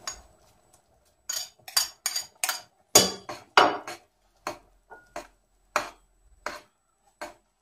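A metal spoon clinking against a china plate and a stainless steel soup pot: a quick run of sharp clinks as the shredded chicken is knocked off the plate into the pot, then single clinks about every two-thirds of a second as the soup is stirred.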